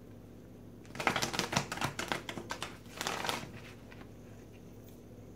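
A deck of tarot cards being shuffled: a rapid run of crisp card clicks starting about a second in, then a shorter run just after.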